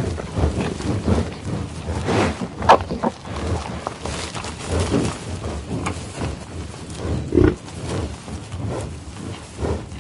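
A buffalo sniffing and eating grass: irregular breaths and chewing, with louder bursts about two and a half and seven and a half seconds in.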